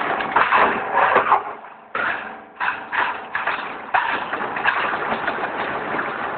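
Hollow-profile roll forming machine running: a dense noisy rush with irregular clicks and knocks, which drops away briefly about two seconds in and then picks up again.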